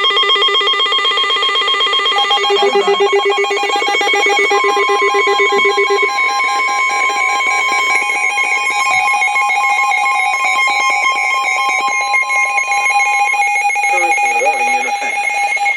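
Several emergency alert receivers sounding together: overlapping electronic alarm tones at many pitches, most of them beeping or trilling rapidly. A steady single alert tone joins in from about four seconds in and stops a couple of seconds before the end.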